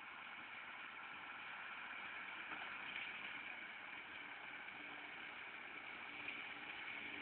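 A John Deere 6830 tractor's six-cylinder engine runs steadily while driving a McHale Fusion 2 round baler at work. It is a continuous mechanical hum with a thin whine over it, growing slowly louder as the outfit passes.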